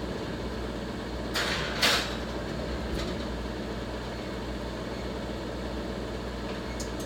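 Pan of meatloaf being put into the oven and the oven door shut: two short noisy clatters about a second and a half and two seconds in, the second louder, over a steady low kitchen hum.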